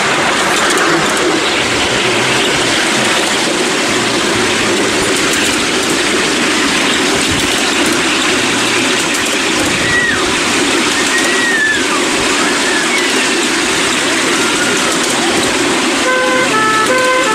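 Miniature railway train running, its wheels rumbling and clattering steadily on the rails, with a few brief wheel squeals in the middle. Near the end comes a run of short tooting tones.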